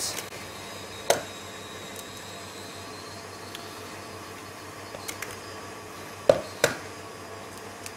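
Eggs being cracked against the rim of a plastic tub: a sharp knock about a second in, then two louder knocks in quick succession near the end, with a few faint shell clicks between. A steady hum runs underneath.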